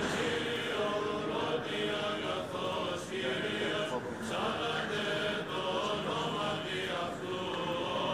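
Orthodox church chanting: voices singing long, held notes that change pitch slowly.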